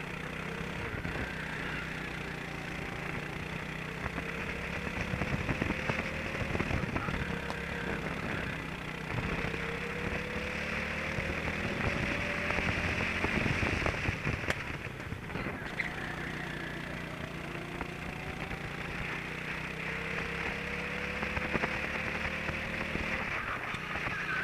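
Racing kart engine heard onboard at speed. Its pitch climbs several times as the kart accelerates along the straights and drops back as the driver lifts for the corners, over a steady rushing, crackling noise.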